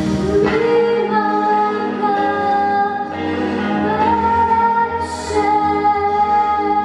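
A female voice singing long held notes over instrumental accompaniment.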